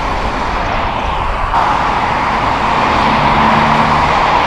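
Road traffic: a vehicle going past on the street, its tyre and engine noise swelling after about a second and a half and staying loud, with a low engine hum briefly underneath.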